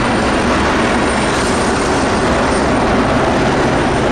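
Airbus H160 twin-turbine helicopter running with its main rotor turning, a steady loud turbine rush over a fast rotor throb.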